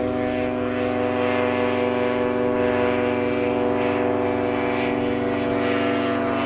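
Earthstar Laughing Gull ultralight in flight overhead: its single-cylinder two-stroke Rotax 277 engine and propeller make a steady, even drone that holds its pitch.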